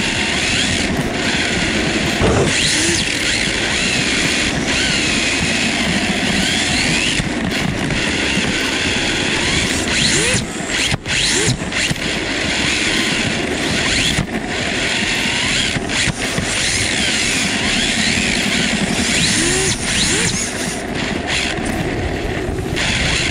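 Onboard sound of a Yokomo YD2 RC drift car being driven: its brushless motor whines, rising and falling over and over as the throttle is worked, over a steady rush of drivetrain and sliding tyres.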